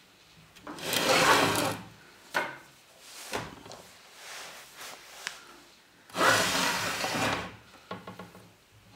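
Sliding glass doors of a terrarium scraping along their track: two long slides, about a second in and about six seconds in, with a few short knocks and scrapes between them.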